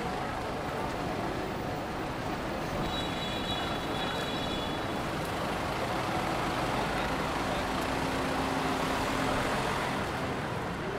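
Street traffic: motor vehicles passing in a steady wash of road noise, with an engine hum that grows louder past the middle and eases near the end. A brief high-pitched tone sounds about three seconds in.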